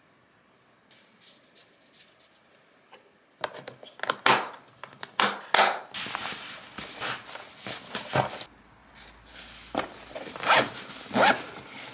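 A few light clicks of a plastic lunch box and tongs, then a padded insulated lunch bag being handled: its fabric rustles and scrapes in loud, irregular strokes as the box goes in and the zipper is pulled closed.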